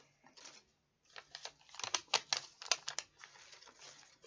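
Paper dollar bills rustling and crackling as they are shuffled in the hands, an irregular run of quick crackles that is busiest from about a second in until about three seconds in.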